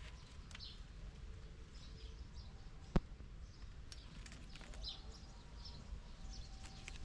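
Faint outdoor ambience with small birds chirping in short scattered calls over a low steady rumble, and one sharp knock about three seconds in.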